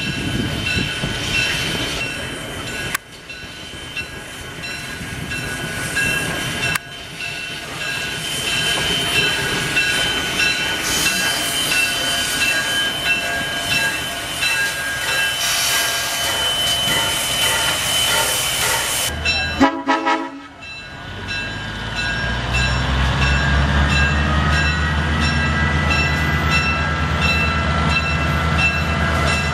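A steam locomotive and a diesel locomotive double-headed, coming slowly up the track with running noise, steam hiss and faint steady tones. After a short break about twenty seconds in, the diesel locomotive's engine runs with a steady low hum that grows louder as it draws close.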